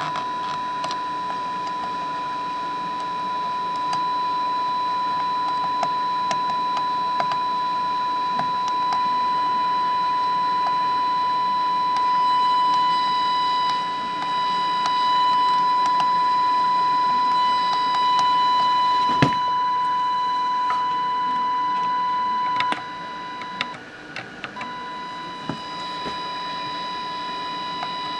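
Steady 1 kHz test tone from an AM signal generator, heard through a tube radio's speaker during IF alignment at 455 kHz. It grows louder in steps as the IF transformers are peaked, then drops sharply about four-fifths of the way through. One sharp click comes about two-thirds of the way through.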